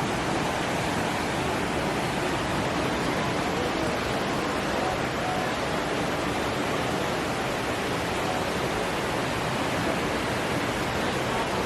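Waterfall rushing steadily: an even, unbroken noise with no breaks.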